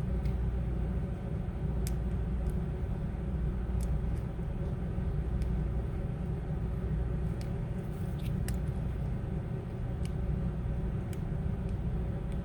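A steady low hum of background machinery or electrical noise, with a few faint light clicks, typical of small parts and tools being handled on a repair bench.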